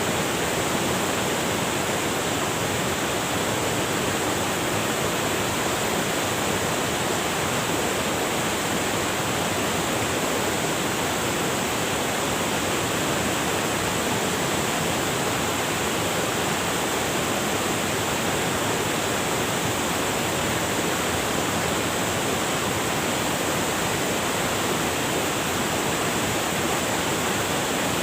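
River water rushing over rocks: a steady, unbroken rush.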